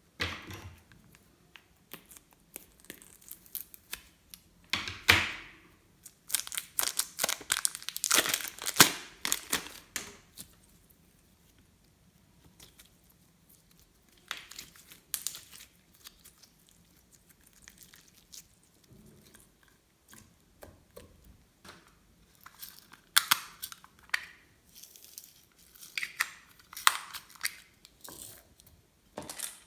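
Glossy slime being worked by hand, giving off irregular sticky crackles and popping clicks in bursts, with short quiet pauses between handfuls.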